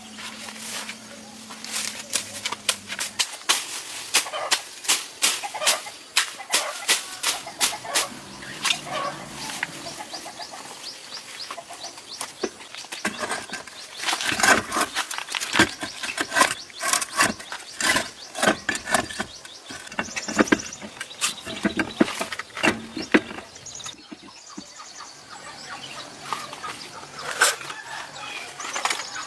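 Many sharp, irregular clicks and taps, often several a second, busiest in the middle stretch.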